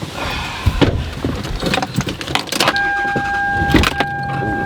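Clicks and knocks of handling inside a Toyota Solara's cabin. About three seconds in, a steady high electronic warning tone from the car starts and holds, briefly breaking once.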